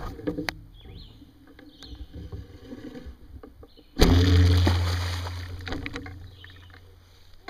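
A carp on a bowfishing arrow line thrashing in the water. About four seconds in comes a sudden loud splash that fades out over the next couple of seconds, after some lighter knocks and sloshing.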